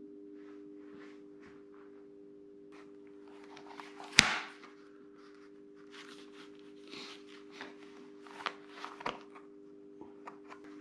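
Handling noises of a motocross helmet and goggles being pulled and adjusted by hand: scattered rustles, scrapes and small clicks, with one sharp knock about four seconds in, over a steady low hum.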